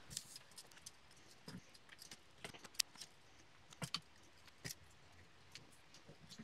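Faint, scattered clicks and taps of metal tongs on a grill grate as pork chops are turned over, with a few sharper ticks in the middle.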